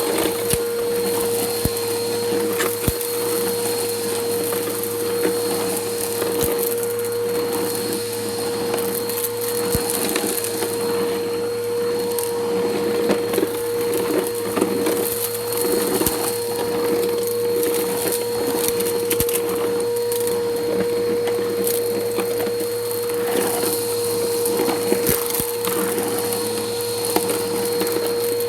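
Bissell Powerforce Helix upright vacuum running steadily with an even motor whine, and a constant crackling and ticking as grit and debris on concrete are sucked up.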